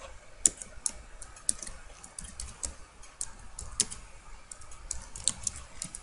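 Typing on a computer keyboard: uneven keystroke clicks, a few a second, with short pauses between bursts.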